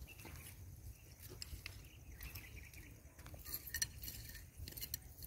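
Faint low rumble of wind and handling with a few light clicks, more of them in the second half, as small pebbles shift in a hand.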